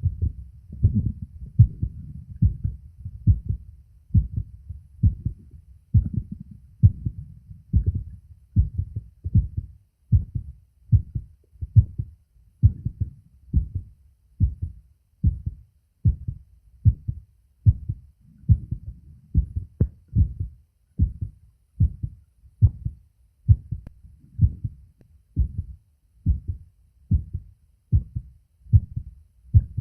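A man's heartbeat picked up by a phone microphone held to the chest: steady lub-dub beats at a bit over one a second, with a low rumble under the first few seconds.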